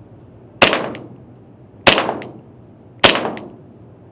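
PTS ZEV 1911 gas blowback airsoft pistol firing on green gas: three sharp shots a little over a second apart, each dying away over about half a second, with a fainter tick a moment after each.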